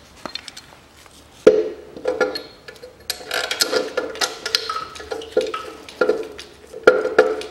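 An alternator being fitted to its engine mounting bracket: irregular metal-on-metal knocks and clanks with brief ringing, as the alternator housing is worked into place. A sharp knock about a second and a half in, then a busy run of knocks and a loud cluster of clanks near the end.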